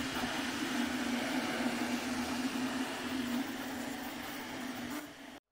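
Anycubic Kobra 2 Pro 3D printer running a print: a steady mechanical whir with a low humming tone that wavers slightly as it works. It cuts off suddenly near the end.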